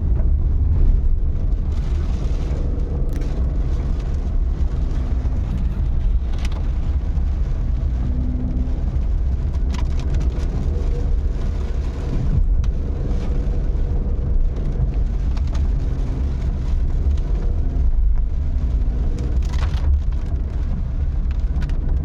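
A car's steady low engine and road rumble as it drives, with a few faint clicks.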